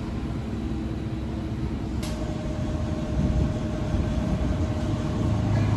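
A vehicle engine running steadily with a low rumble, with a faint steady whine joining about two seconds in after a single click.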